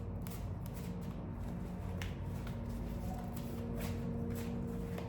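Tarot cards being shuffled and handled: soft papery rustling with a few crisp flicks, over a steady low hum.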